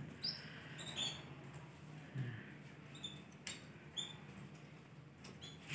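Domestic canary giving short, high chirp calls, faint and scattered about once a second, without breaking into song.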